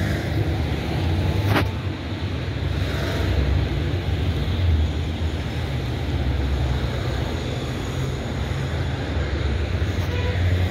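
Street traffic noise: a steady low rumble from cars on the road, with one sharp click about one and a half seconds in.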